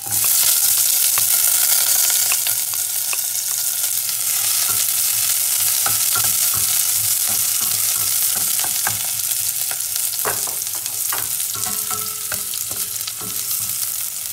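Chopped onions dropped into hot oil and garlic in a stainless steel pot, sizzling; the sizzle starts suddenly as they go in and eases slightly after a couple of seconds. A wooden spoon stirs them, knocking and scraping against the pot.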